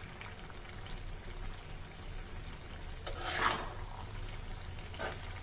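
A metal spatula stirring and scraping thick green chilli pickle in a metal pan on the stove, with a faint sizzle. The loudest scrape comes about three seconds in and a shorter one near the end, over a steady low hum.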